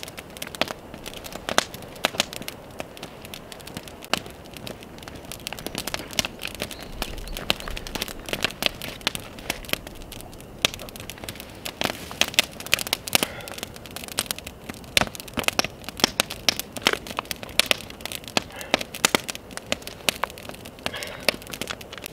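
Wood campfire crackling and popping, with sharp pops scattered irregularly throughout and coming thicker in the second half.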